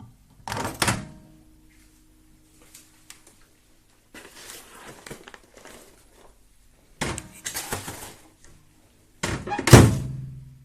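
Clunks and knocks with rustling in four bunches, the loudest near the end: the microwave door and the popcorn bag being handled once the popping has finished.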